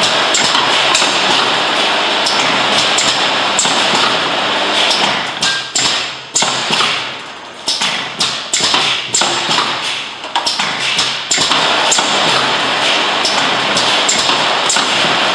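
Semi-automatic vacuum capping machine running: a loud, steady hiss and hum from its vacuum pump, with frequent taps and clicks as glass jars with tinplate lids are set in and capped. For several seconds in the middle the noise drops and surges back unevenly.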